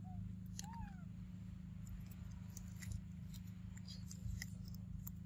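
A young macaque gives two short, high coo calls near the start, the second rising and falling. Scattered light clicks and crackles from the monkeys feeding and shifting in dry leaf litter follow, over a steady low hum.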